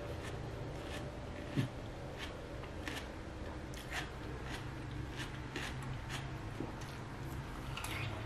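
A person chewing watermelon: a run of short, crisp wet clicks from the mouth, with a dull thump about a second and a half in and a fresh bite near the end, over a steady low hum.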